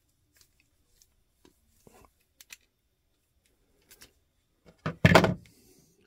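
Faint clicks and handling noise of GuuYebe wire strippers' crimper closing on a ring terminal crimped onto a copper ground wire, then one loud thunk about five seconds in as the pliers are set down on the countertop.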